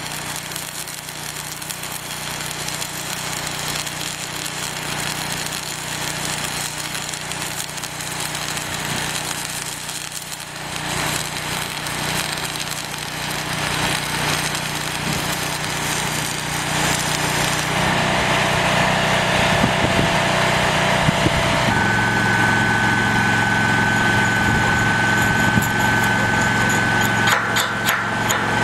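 Flux-cored wire-feed welding arc crackling and hissing steadily as a bead is run on structural steel. About two-thirds of the way in the crackle gives way to a steady engine hum with a high steady whine, and a few sharp clicks come near the end.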